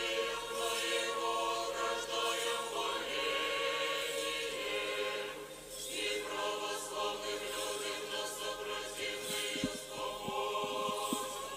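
Russian Orthodox church choir singing unaccompanied in long held chords, with a short break between phrases about halfway through.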